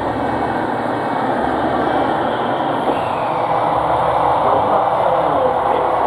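JR 313 series electric local train running into the station platform: a steady rush of wheel and motor noise, with wind rumbling on the microphone.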